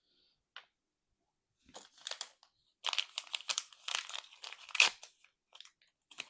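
Thin plastic packaging crinkling and tearing as a small sealed bag holding a miniature toy is opened by hand: a faint click, then a run of quick crackles starting nearly two seconds in.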